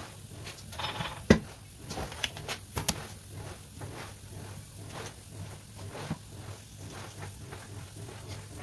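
Kitchen knife chopping tomatoes on a plastic cutting board: a run of light knocks, about two to three a second, with a sharper, louder knock about a second in.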